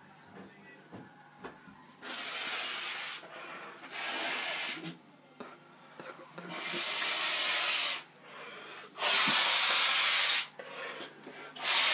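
A man blowing his nose hard into a tissue, five long blasts with short gaps between them, the last two loudest, clearing snorted spice powder out of his nose.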